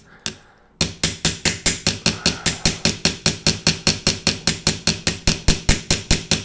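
Small hammer tapping quickly and steadily on a knife's rivet pin, about six light metal-on-metal strikes a second, peening the pin's tail into a head. The taps start after a brief pause just under a second in.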